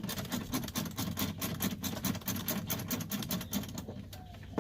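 Ratchet clicking rapidly as a 10 mm bolt is loosened, the clicks fading out about four seconds in.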